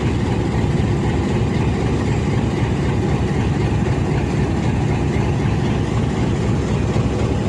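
GE U20C diesel-electric locomotive's 12-cylinder 7FDL diesel engine running steadily, a low, even rumble with no change in speed.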